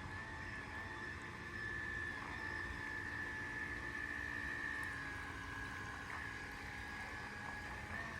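Small electric motor of a toy RC boat whining at a steady high pitch that wavers slightly, over a low rumble.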